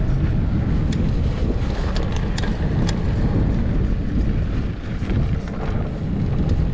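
Wind buffeting the microphone over the rumble of a Trek Slash 7 mountain bike's tyres rolling on a dirt trail, with a few sharp clicks and rattles between about one and three seconds in.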